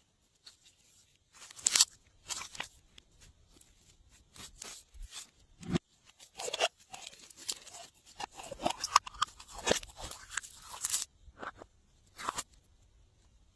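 Glossy slime being mixed and squished, giving a run of short sticky crackles and pops that come thickest from about six to eleven seconds in.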